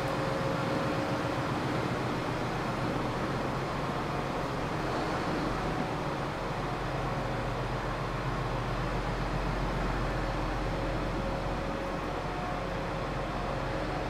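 John Deere 8430 tractor's diesel engine running steadily as it pulls a grain auger cart.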